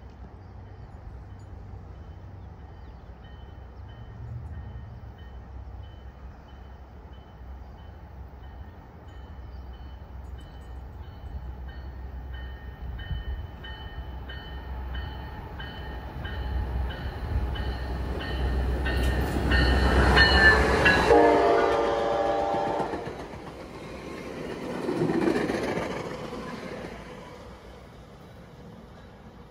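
Train approaching and passing, its rumble building to a peak with the horn sounding; the horn's pitch drops sharply as the train goes by, then the noise fades away.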